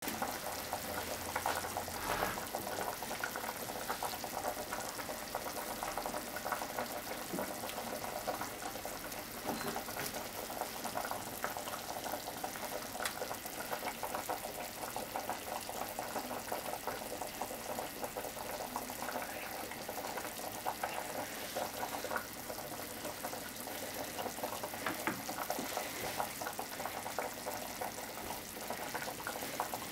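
A pot bubbling steadily on the stove, a continuous fine crackle, with a few soft knocks of hands handling food and a bowl on the cutting board.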